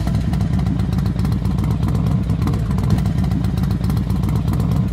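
Motorcycle engine running loud and steady at idle just after starting, its exhaust pulses coming in a rapid, slightly uneven beat.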